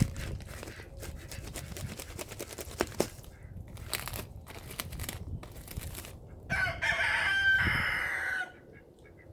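Rustling and light clicking as pine shavings are handled, then a rooster crows once, about six and a half seconds in. The crow lasts about two seconds and is the loudest sound.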